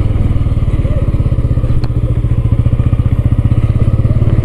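Motorcycle engine running at low revs with a rapid, even pulse as the bike is ridden along a dirt road.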